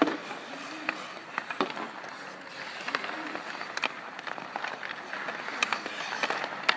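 Ice hockey play: skate blades hissing and scraping on the ice, with sharp clacks of sticks striking the puck and ice several times, and faint voices of players.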